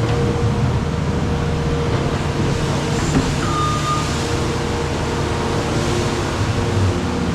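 Skid loader engine running steadily under work, with one short high beep about three and a half seconds in.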